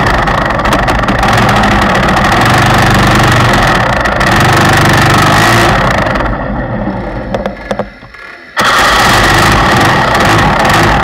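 Go-kart engine running as the kart drives out onto the track. About six seconds in, the engine sound falls away for roughly two seconds with a few clicks, then returns abruptly at full level.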